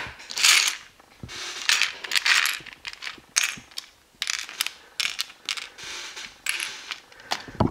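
Loose plastic LEGO bricks clicking and clattering as a hand rummages through a pile of pieces, with brief rustles of instruction-booklet paper.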